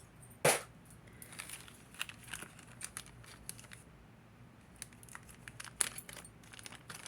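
Small clicks, light metallic clinks and brief plastic rustles of costume earrings and a small plastic baggie being handled at irregular intervals, with one louder short sharp sound about half a second in.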